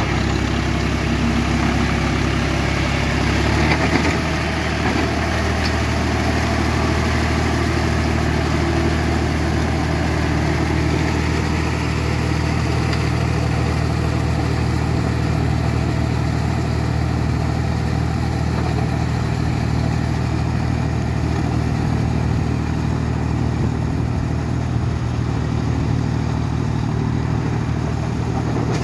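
John Deere 5045D tractor's three-cylinder diesel engine running steadily under load as it works through deep mud, with a short louder burst about four seconds in.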